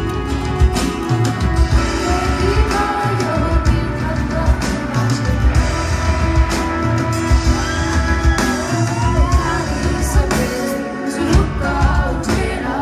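A live band plays a song: a woman sings over acoustic guitar, electric guitar, bass guitar, keyboard and drums, with a steady beat. Her vocal line comes in about two seconds in.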